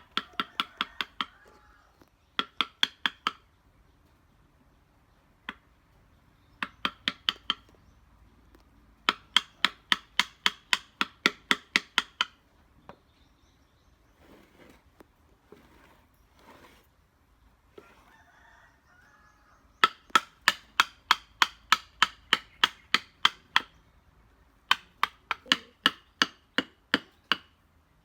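Mallet striking a wood-carving chisel: quick runs of sharp taps, about four a second, broken by pauses of a second or more.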